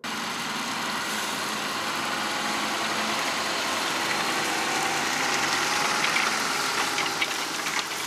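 Fendt 828 tractor's six-cylinder diesel engine working steadily under load as it pulls a six-furrow Kverneland plough past, a continuous engine drone. A few light clicks come near the end.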